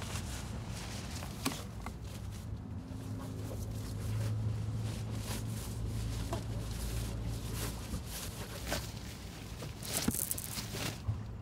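Low, steady rumble of a car's cabin while driving, growing a little louder about four seconds in. A few light clicks and a short rustle come near the end.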